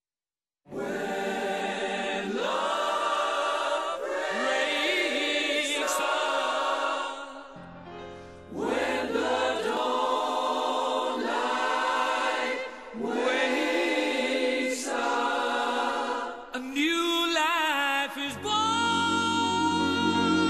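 Background music: a song with layered sung vocals. It starts just under a second in and briefly drops away about eight seconds in.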